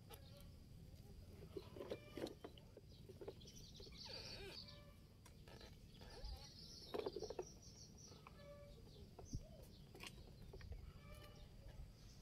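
Faint outdoor sound: scattered bird chirps and short animal calls over low, steady background noise.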